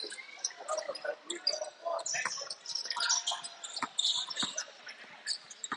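Basketball game play on an indoor court: a ball bouncing and short high squeaks of shoes on the floor, over a background of voices.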